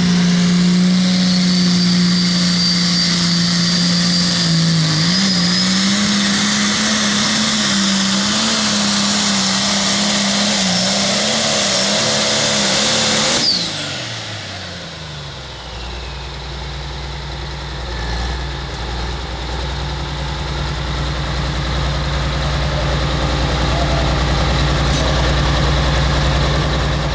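Turbocharged diesel engine of a Limited Pro Stock pulling tractor running flat out under heavy load as it drags the weight sled, its pitch wavering slightly, with a high whine above it. About halfway through it is throttled back, winds down over a couple of seconds and settles into a steady idle.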